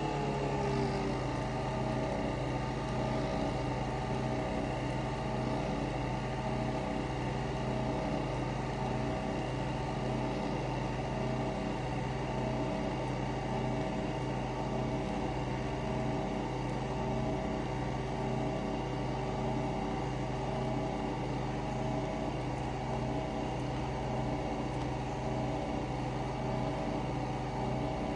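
Nespresso Vertuo Next capsule coffee machine running its brew cycle, spinning the capsule while it pours: a steady mechanical hum that settles to a lower pitch just after the start, then holds even.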